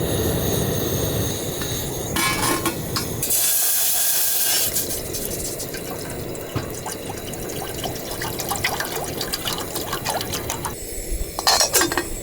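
Water running and splashing steadily, louder for a second or so about three seconds in, with a few clinks near the end.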